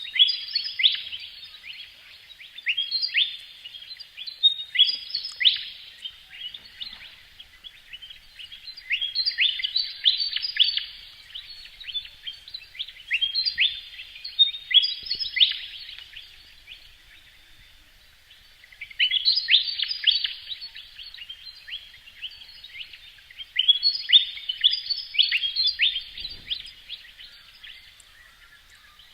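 A bird calling in bursts of rapid high chirps, each burst lasting a few seconds, with short pauses between.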